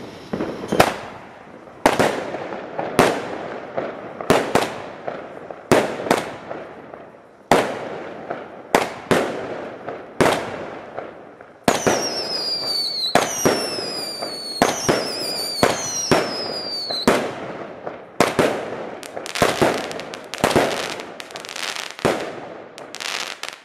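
Klasek Mosquito 16-shot, 20 mm firework cake firing: a rapid series of sharp shots and bursts, about one or two a second. For several shots in the middle, each is followed by a falling whistle.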